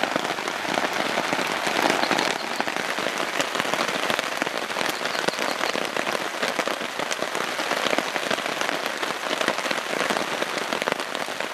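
Heavy, steady rain falling on a tarp overhead, a dense mix of many small drop taps.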